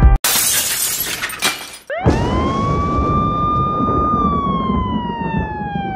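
Intro sound effects over a title card: a burst of shattering glass, then a siren-like tone that sweeps up quickly, holds, and then slowly falls.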